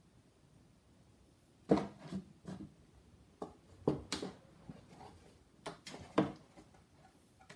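A kitten bumping into and scrambling against an empty cardboard shoe box on a wooden floor: a string of irregular knocks and scrapes, starting about a second and a half in.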